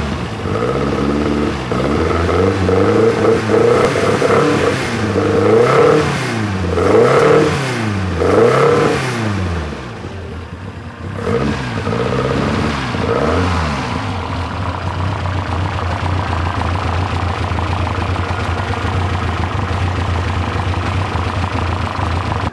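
Renault Gordini 1800cc 16-valve racing engine of an Alpine A110 rallycross car, its throttle blipped again and again so the revs rise and fall quickly through its open velocity-stack intakes. It then settles to a steady idle for the last several seconds.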